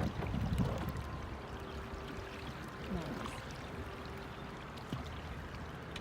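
River water running around a bamboo raft: a steady rushing, pouring sound.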